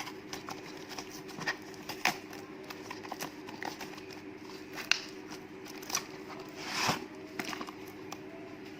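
A parcel being unpacked by hand: scattered light clicks and taps of packaging and plastic parts, with one short scrape about seven seconds in. A steady low hum runs underneath.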